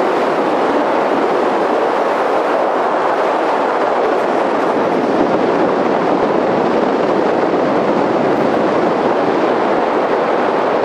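Steady rush of wind buffeting the microphone from the airflow of a paraglider in flight.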